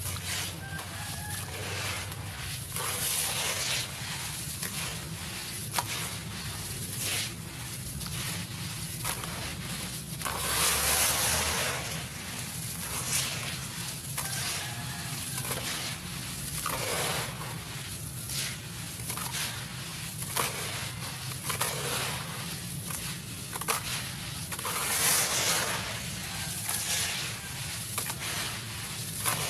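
Crumbly concrete being crushed and broken apart: irregular crunching and crackling with sharp snaps, louder around 11 seconds in and again near 25 seconds.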